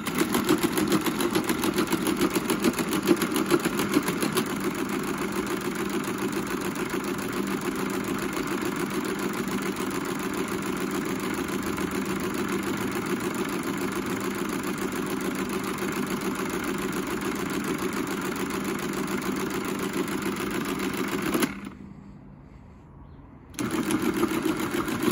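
Friden STW-10 electromechanical calculator running non-stop: a motor hum under a fast, even clatter of its gear train as it repeats subtraction cycles endlessly, stuck in a loop trying to divide by zero. The clatter cuts off abruptly about 21 seconds in, as the cycle is broken. A second short burst of the same running sound comes near the end.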